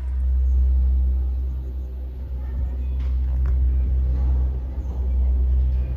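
Steady low rumble of a gondola lift cabin riding up the cable, with a couple of faint clicks about halfway through.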